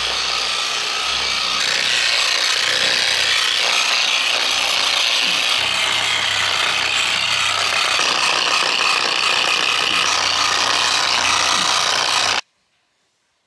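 Electric rotary buffer with a wool pad spinning against a fiberglass boat hull, a steady whirring scrub as it polishes oxidation out of the gel coat. It cuts off abruptly about a second before the end.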